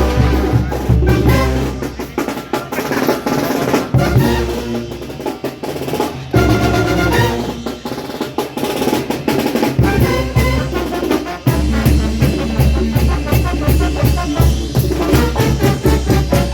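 A Mexican banda brass band, with trumpets, trombones and drums, playing an up-tempo Latin dance tune. The deep bass notes drop out twice for a few seconds while the horns and percussion carry on.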